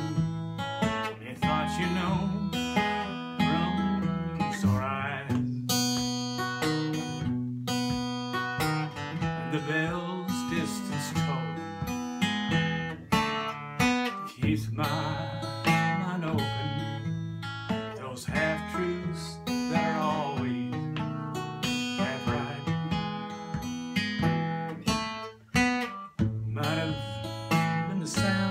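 Steel-string acoustic guitar played solo, strummed chords ringing on in a slow song accompaniment.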